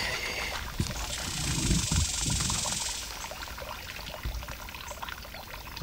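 Footsteps through dry grass and brush, with leaves and branches rustling against the person pushing through, a hiss of rustling strongest in the first half.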